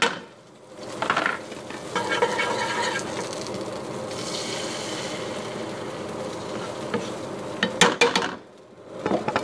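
Egg-white omelette on bread sizzling steadily in a nonstick frying pan, with a few sharp clicks near the end.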